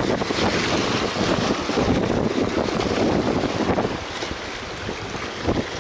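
Waves washing and splashing against the boulders of a rock jetty, with wind buffeting the microphone. It eases off for a moment about four seconds in.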